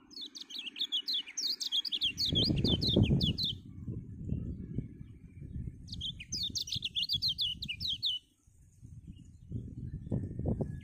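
A caged kecial (white-eye) sings a fast 'gacor' lure song (pancingan) in two bursts of rapid high chirps, each note a quick downward sweep. The first burst lasts about three and a half seconds and the second starts about six seconds in. A low rumbling noise runs underneath from about two seconds in and is louder than the song.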